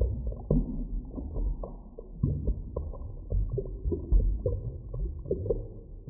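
Underwater drowning sound effect: a deep, steady rumble of water with bubbles gurgling and popping at irregular moments throughout.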